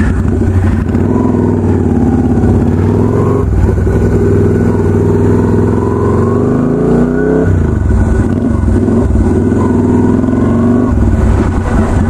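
Yamaha Virago 250 custom chopper's air-cooled V-twin engine under way, its pitch rising and falling as the throttle is worked. About seven seconds in it revs up sharply, then drops back.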